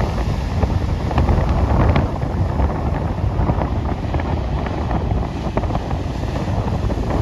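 Strong wind buffeting the microphone: a loud, steady low rumble with small scattered crackles.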